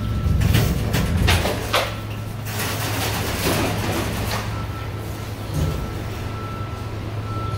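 Mitsubishi elevator car doors sliding as the door buttons are pressed, with rushing noise for the first few seconds, over a steady low hum. A thin steady whine sounds briefly at the start and again through the second half.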